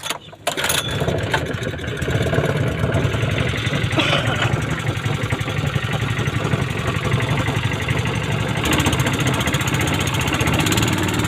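An engine starts about half a second in and then runs steadily at idle, its sound shifting a little about two-thirds of the way through.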